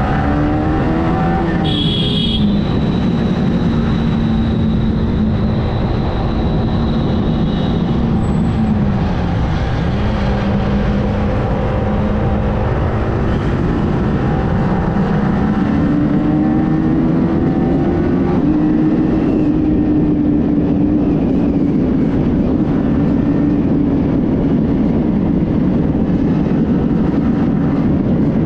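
Yamaha R15M motorcycle's single-cylinder engine running under way, its note rising and falling slowly as the rider speeds up and eases off, over a steady rush of wind on the microphone. A brief high-pitched beep about two seconds in.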